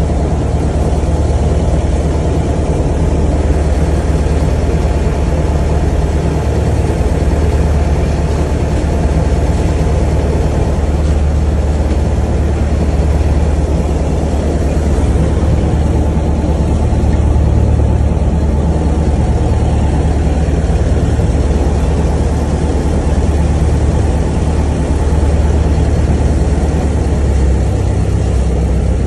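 An engine running steadily at a constant low speed: a loud, deep, even drone that does not rev up or down.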